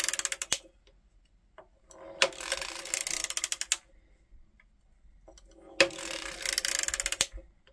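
Erlbacher Gearhart Speedster circular sock knitting machine being hand-cranked a row at a time while increasing stitches for the toe, its needles clicking rapidly through the cams. There are three spells of cranking, each about a second and a half long, with pauses between them.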